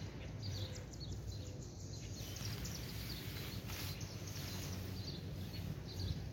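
Nylon tent rainfly rustling and flapping as it is spread over a dome tent, loudest from about two to four seconds in. Small birds chirp now and then over a steady low hum.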